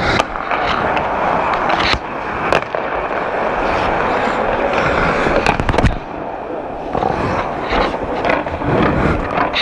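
Ice hockey play heard close up from inside a goalie's mask: steady scraping of skate blades on the ice with several sharp clacks of sticks and puck striking sticks and goalie pads.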